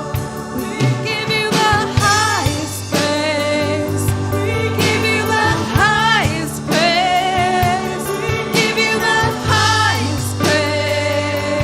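Live worship music: a singer holds and bends long wordless notes with vibrato over keyboard, bass and a steady drum beat.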